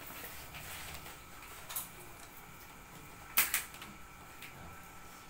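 A few light clicks and taps from small objects being handled on a table, over faint room noise. A small click comes about a second and a half in, and a sharper double click, the loudest sound, comes about three and a half seconds in.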